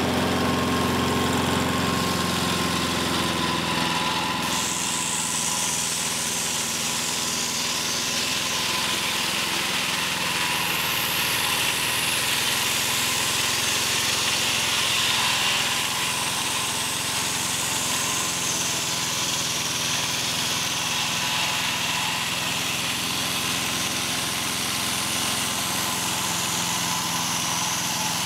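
Mobile Dimension Saw portable sawmill running steadily, its engine under load while the circular blade cuts through a very large log. A high hiss from the cut changes about four seconds in, over a steady whine from the machine.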